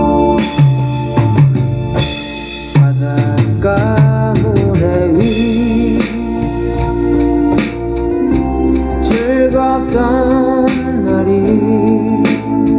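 Late-1970s Korean pop song: sustained organ chords and bass under a singing voice with vibrato, with a drum kit played along and frequent cymbal crashes.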